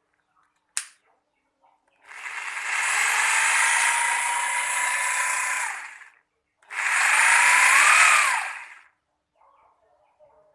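INGCO RGH9028-2 rotary hammer drill run without load twice, about four seconds and then about two seconds, its motor whining; the pitch climbs and then drops off in the second run. A sharp click comes about a second in, before the first run.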